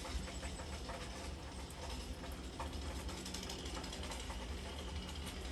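Rain pattering steadily, a dense run of small ticks over a low rumble.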